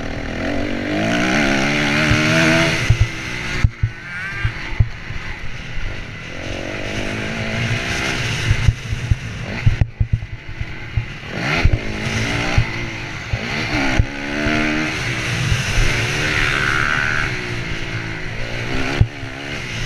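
Honda CRF250R's single-cylinder four-stroke engine under race load, repeatedly revving up and dropping back as it is ridden hard around a motocross track, heard from a helmet-mounted camera. Sharp knocks and thumps come through over the bumps.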